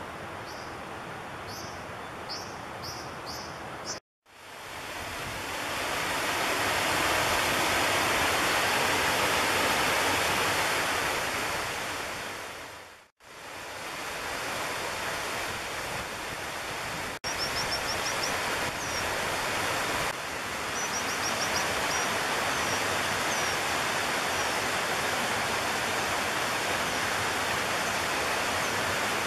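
Brown dippers calling over a flowing stream. In the first few seconds there is a run of short, sharp, high calls, each rising. After a break comes loud rushing water, and later two quick runs of high call notes over the steady stream noise.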